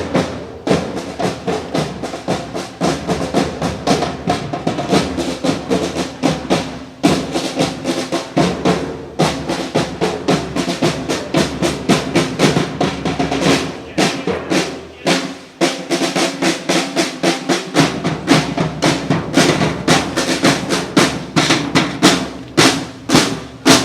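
Drums playing a steady march beat, snare drum to the fore with rolls and a bass drum, over sustained pitched notes.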